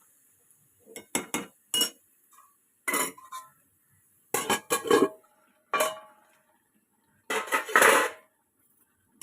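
Metal pots, pans and utensils clattering and clinking: a string of sharp, irregular clanks with brief ringing, some in quick clusters.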